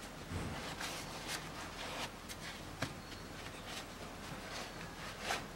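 Gloved hand wiping down a car's transfer case housing: irregular short scuffing and rubbing strokes with a few light knocks.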